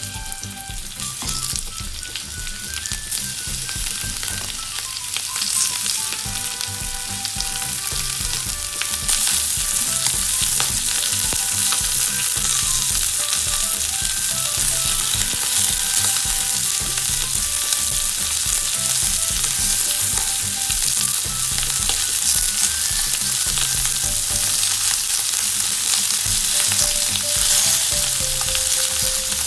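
Chunks of bone-in beef rib sizzling as they fry in a frying pan. The sizzle grows louder over the first several seconds as more pieces go into the pan, then holds steady while the meat is turned with chopsticks.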